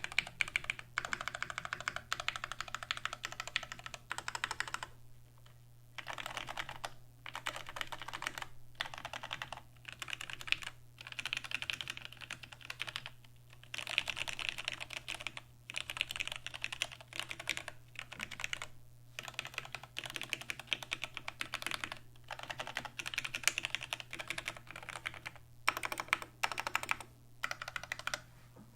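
Continuous fast typing on a mechanical keyboard with lubed Gateron Black Ink linear switches on a steel plate and GMK Space Cadet keycaps, keystrokes coming in runs of a few seconds broken by short pauses.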